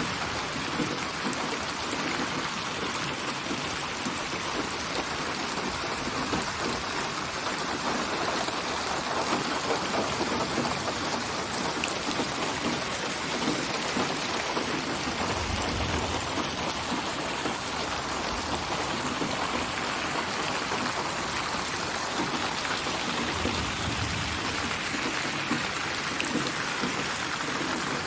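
Steady rain falling, an even hiss of many drops, with a brief low rumble twice, about halfway through and again near the end.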